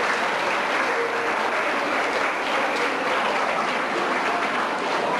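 Audience applauding steadily: many people clapping at once in a large hall.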